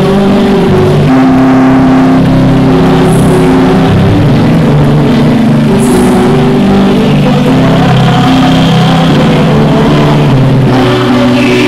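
A male singer singing long held notes into a microphone over musical accompaniment, played through a PA and recorded very loud.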